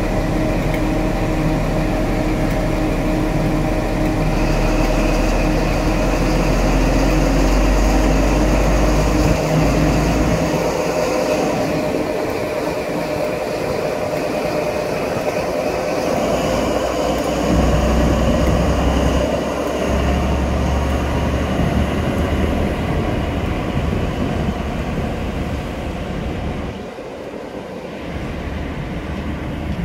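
Class 43 HST power car's MTU 16V4000 diesel engine running under power as the train moves away, a loud steady drone that drops back about ten seconds in, picks up again about seventeen seconds in, and eases near the end.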